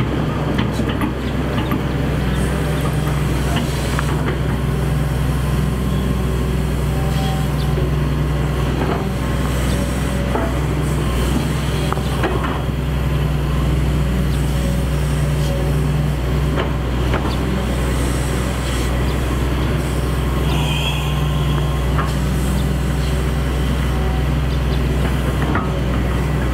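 Excavator's diesel engine running steadily, with short knocks and clanks scattered throughout.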